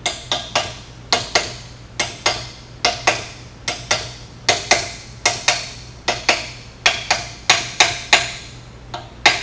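Brass hammer tapping a connecting rod cap onto its rod on an aircraft-engine crankshaft, persuading the stubborn cap to seat over its bearing. About thirty sharp, ringing metal taps come in quick pairs and threes at roughly three a second, with a short pause near the end before the hardest tap.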